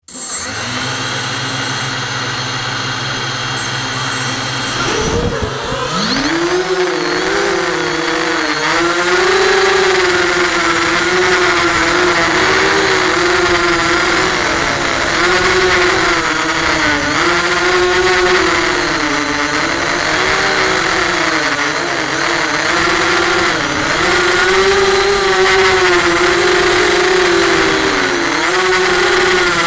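Electric motors and propellers of an FPV racing quadcopter: a steady hum with a high whine for about five seconds, then a sudden rise as it lifts off, followed by a strong buzz that wavers up and down in pitch as the throttle changes in flight.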